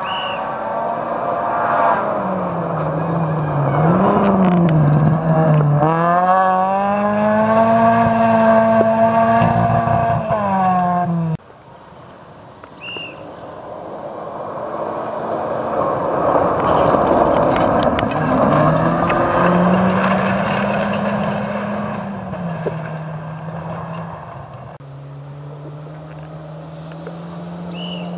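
Rally car engines at racing revs on a gravel stage, one car after another. Each engine note rises, drops sharply at gear changes and swells as the car comes closer. The sound cuts off suddenly about eleven seconds in, and the next car's engine builds up from quiet.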